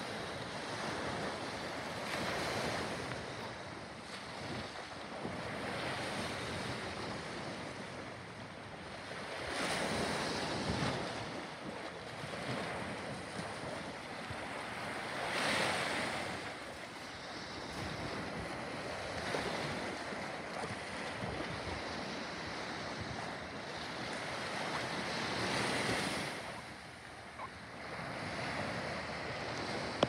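Small ocean waves breaking and washing up a sandy beach, a steady rush of surf that swells louder with each wave every few seconds.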